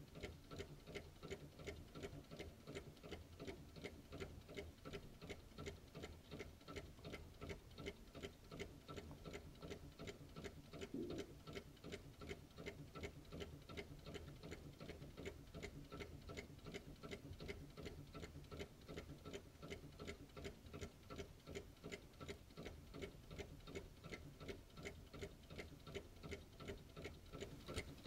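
Small model Stirling (hot-air) engine running on its burner flame, its mechanism ticking steadily and evenly with each turn of the flywheel.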